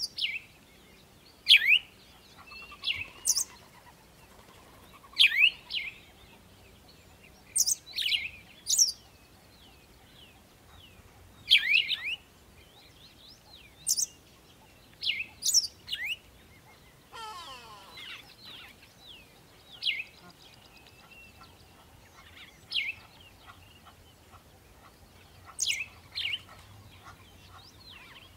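A bird chirping over and over, short sharp downward-sweeping calls every second or two.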